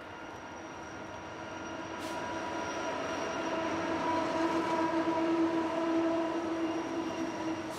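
Union Pacific diesel-led double-stack intermodal freight train passing close by. The rumble of the train carries a steady whine of several tones that builds, is loudest a little past the middle, and fades near the end.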